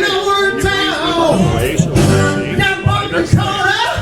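Live band playing loud rhythm-and-blues with drum hits and a man's voice singing.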